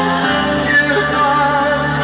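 A live band playing a song, a man singing lead over bass and guitar.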